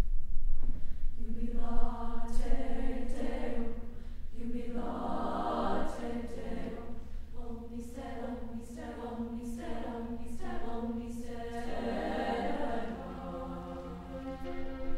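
Women's choir in upper voices (SSAA) singing a cappella: held chords that move every second or so, with the words marked by crisp consonants.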